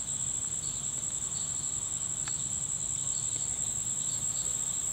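Crickets trilling in one continuous, steady, high-pitched drone.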